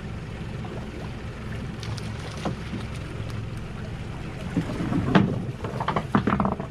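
Boat's diesel engine idling steadily with a low hum, with some wind. About four and a half seconds in comes a two-second flurry of louder, irregular knocks and rustles.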